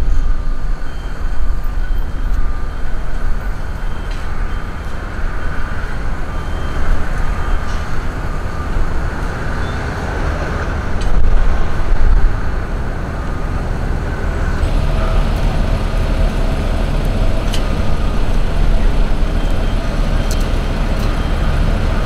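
Road traffic noise: a steady low rumble with faint steady tones above it, swelling a little about halfway through.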